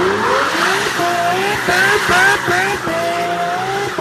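Sports car doing a burnout donut: the engine revs rise and drop several times in quick steps, then hold a steadier high note near the end, over the screech and hiss of spinning tyres.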